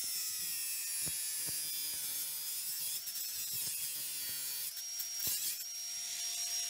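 Angle grinder cutting through a rusted, seized steel cistern-to-pan bolt: a steady motor whine that sags in pitch while the disc bites into the bolt. The whine rises again about five seconds in as the bolt is cut through.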